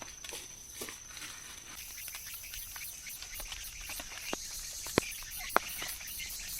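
A steady high insect trill over a hiss of light rain, with scattered sharp taps, two louder ones about five seconds in.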